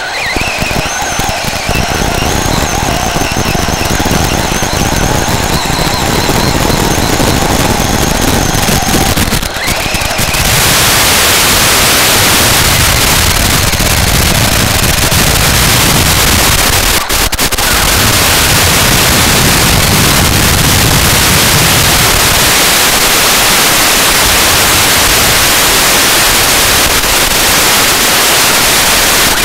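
Whine of a Traxxas 4x4 Slash VXL RC car's brushless motor and drivetrain, its pitch rising and falling with the throttle. About ten seconds in, it gives way to a loud, steady static hiss from the analog FPV video link.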